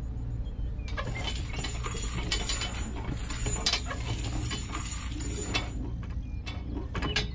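Rapid light clicking and scraping with small clinks of hard parts, over a steady low hum. It thins to scattered clicks about six seconds in.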